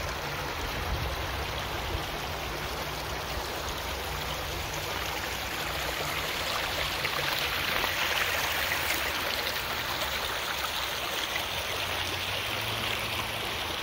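A shallow creek running over gravel and stones: a steady rush of flowing water, swelling slightly toward the middle.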